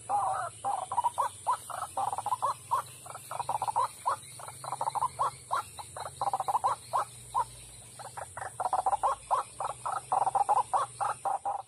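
White-breasted waterhen (ruak-ruak) calling: a long run of short notes repeated several times a second, thinning briefly about seven seconds in.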